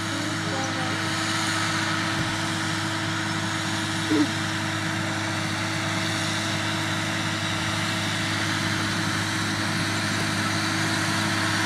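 Steady hum of a vehicle engine running at an even speed, with a short rising chirp about four seconds in.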